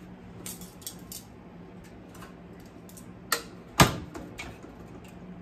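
Light clicks and rattles as a countertop toaster oven is handled, then a sharp click and a louder metal clunk almost four seconds in as its glass door is pulled down open.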